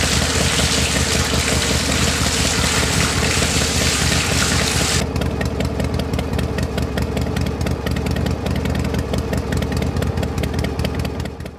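Small model engine running steadily with a fast ticking rattle, turning a miniature flour mill by a rubber belt. Over it, a stream of liquid pours from the mill's spout into a brass bowl and stops about five seconds in.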